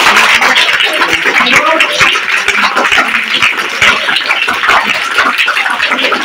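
A room full of children applauding: many hands clapping quickly and unevenly at once, with a few voices calling out among the claps.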